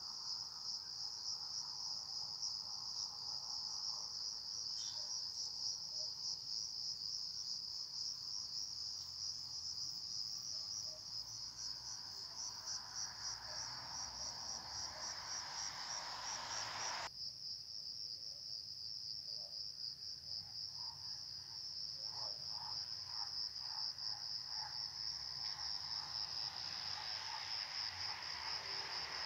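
Crickets trilling in a steady, high-pitched continuous chorus, with a softer background wash that drops away abruptly about halfway through.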